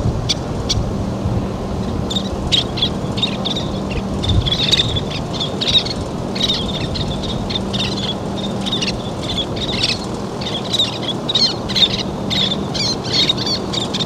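Least terns giving many short, high chirping calls in quick series from about two seconds in, over a steady low background rush.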